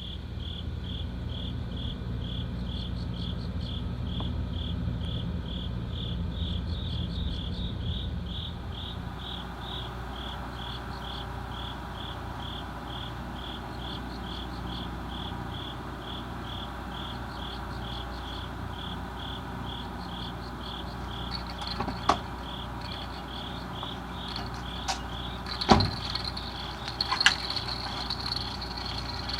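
Cricket chirping steadily, roughly two to three even chirps a second, over a low steady rumble, with a few sharp knocks in the last few seconds.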